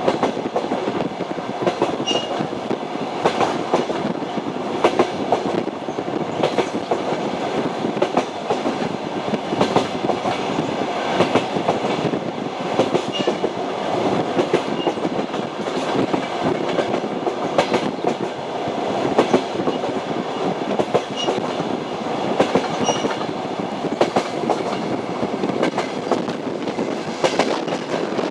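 Train wheels clattering over the rail joints as the train runs along at steady speed: a continuous rumble with a stream of clicks and knocks.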